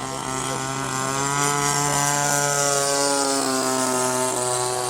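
RC model airplane's motor and propeller running, a steady buzzing drone that grows louder toward the middle and drops a little in pitch near the end.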